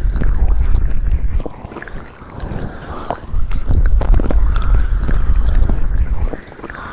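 ASMR ear massage on a binaural microphone: hands rubbing over the mic's ears, giving a deep rumbling friction sound in two long passes, with scattered small clicks.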